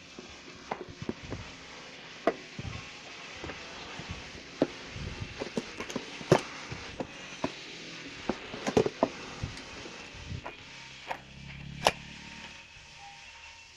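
Irregular clicks and knocks of a new angle grinder and its packaging being handled during unboxing, a couple of them sharper than the rest.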